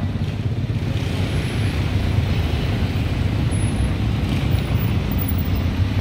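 Steady city road-traffic rumble, low and continuous, with no single vehicle standing out.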